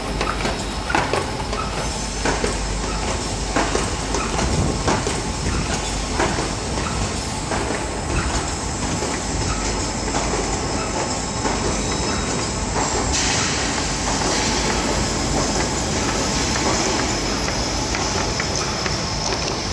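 Rolam 1200 PC folder gluer running: a steady mechanical clatter of belts and rollers carrying corrugated carton blanks, with frequent sharp clicks and knocks through the first half. About two-thirds of the way through it turns to a steadier, brighter hiss.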